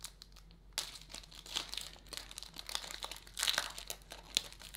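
Foil wrapper of a baseball card pack crinkling and tearing as it is pulled open by hand, starting about a second in, with the loudest crackle a little past the middle.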